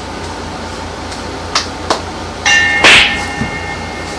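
Metal kitchenware knocking and clattering: two light clicks, then a metal piece struck so that it rings with a steady tone for over a second, with a loud clatter just after the ring starts.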